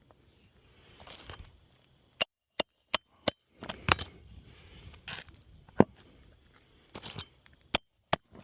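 Asphalt shingles being worked loose on a roof: sharp knocks, four in quick succession about two seconds in and more near the end, between short stretches of scraping and crunching as the brittle shingles are pried and torn.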